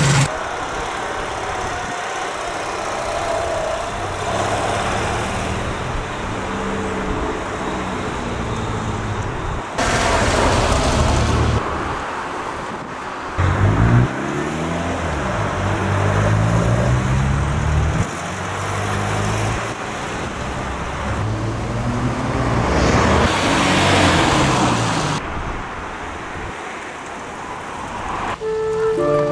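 Classic cars driving past one after another, their engines running and rising and falling in pitch as they pull away and pass. The sound changes abruptly several times as one short clip follows another.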